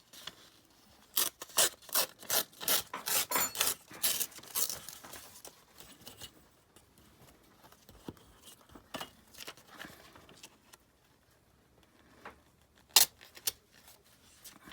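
Scissors cutting through a large calendar page in a quick run of about a dozen snips, then quieter paper rustling and one sharp click near the end.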